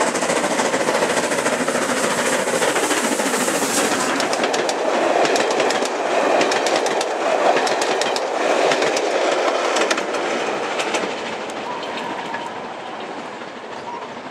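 A steam-hauled mail train, an N2 0-6-2 tank locomotive with its coaches, running through a station at speed. The wheels clatter over the rail joints in quick clicks as the coaches pass close by, then the sound fades away over the last few seconds.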